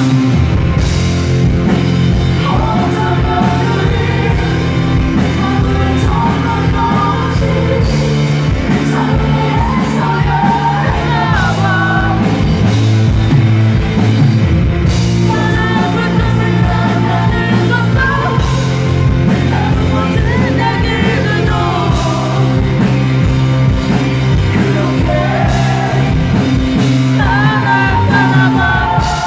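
Live rock band playing: a male lead vocal sung over electric guitar, bass and drums.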